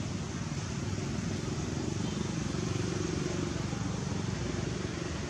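A steady low rumble with a hiss over it and a faint wavering hum.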